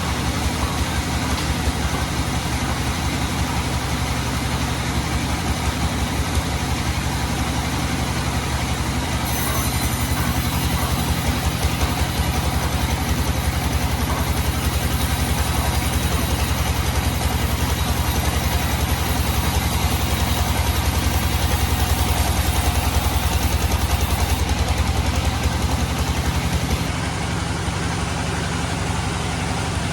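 Sawmill engine running steadily with a fast, even pulsing, and a higher hiss over it for the middle stretch.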